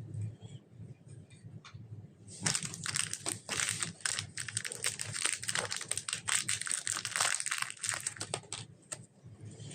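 Slime being squished and mixed, giving a dense crackling and popping that starts about two seconds in, lasts about six seconds, then dies away.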